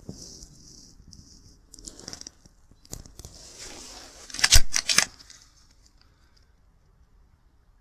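Rustling and scuffling noise with scattered clicks, and a quick cluster of loud sharp cracks about four and a half seconds in.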